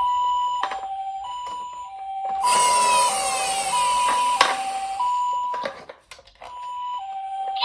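Toy ambulance's electronic siren steadily alternating between a high and a low note, each held a little over half a second: the Japanese 'pi-po' ambulance pattern. From about two and a half seconds in, a rushing rattle of the minicar rolling down the slope runs over it, with a sharp click in the middle. The sound drops away briefly near six seconds, then the siren returns.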